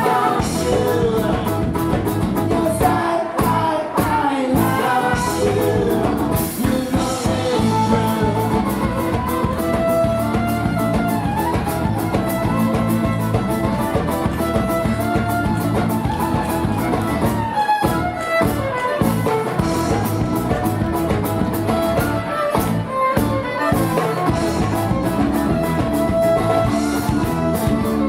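Live folk-rock band playing an instrumental passage, with guitar over a steady beat.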